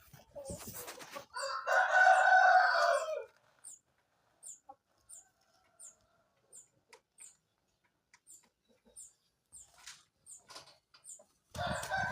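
Rooster crowing: one full crow lasting about a second and a half, with a second crow starting near the end. A faint, high, short chirp repeats steadily throughout.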